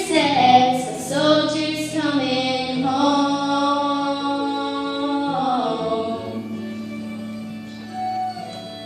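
Two girls singing together, drawing out the final line of the song in long held notes that fade away after about six seconds.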